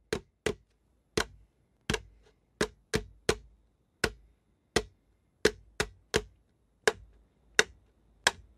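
Dry wooden branches knocked as rhythm sticks, playing a repeating '1-2, tak tak tak' beat: two spaced knocks, then three quicker ones, about two knocks a second.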